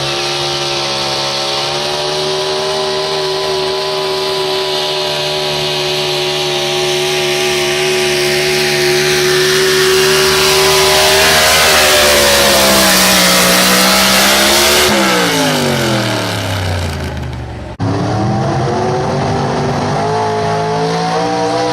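Super stock 4x4 pulling truck engine running flat out at high revs under load, with a growing hiss of spinning tires and sled. About 15 seconds in, the revs fall away steeply as the truck comes off the throttle. Near the end the sound cuts abruptly to another engine again held at high revs.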